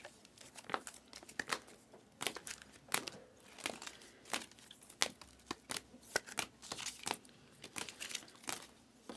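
Stacked trading cards in rigid plastic toploaders being handled and sorted, the hard plastic holders giving short, sharp clicks and scrapes against one another, irregularly, about one or two a second.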